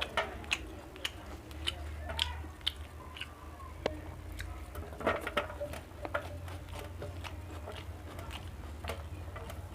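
Close-miked mouth sounds of a person chewing and biting food, with irregular sharp crunches, thickest about halfway through, over a low steady hum.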